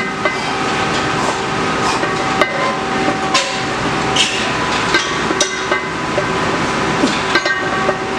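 Metal clinks and knocks from a loaded barbell and its plates during squat reps, about a dozen short sharp hits at irregular intervals, over a steady hum.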